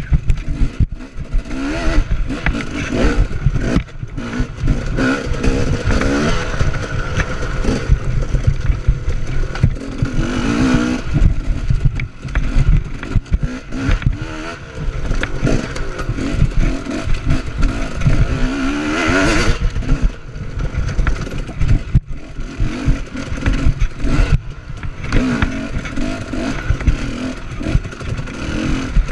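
Dirt bike engine revving up and down hard, with a rising whine about two-thirds of the way through, as the bike rattles and knocks over rough trail, heard from a camera on the rider's chest.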